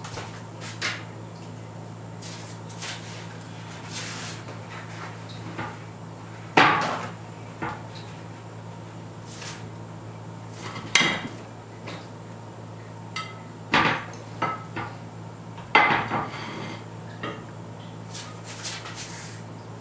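Kitchen clatter: scattered sharp knocks and clinks of pots, dishes and utensils being handled, four of them clearly louder than the rest, over a steady low hum.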